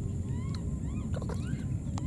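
A steady low rumble runs throughout. Over it come several short, rising, high animal chirps, starting about half a second in.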